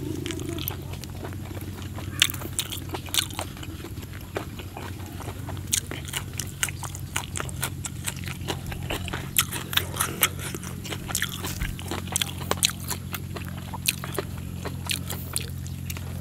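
Close-miked chewing of raw beef eaten by hand, with many irregular wet smacking clicks of the lips and mouth. A steady low hum runs underneath.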